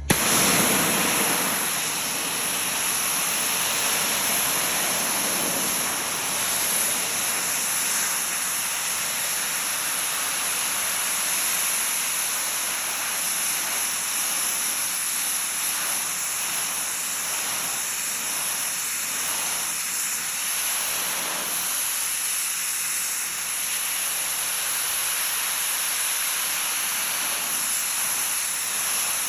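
Pressure washer blasting a high-pressure jet of water onto grease-stained denim jeans: a steady hissing spray that starts suddenly.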